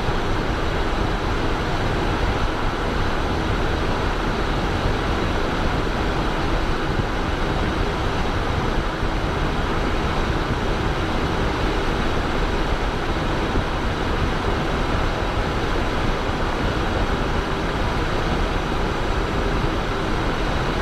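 Steady cockpit noise of a Cessna Citation Bravo business jet on final approach: a constant rush of airflow mixed with the hum of its twin Pratt & Whitney PW530A turbofans, holding an even level throughout.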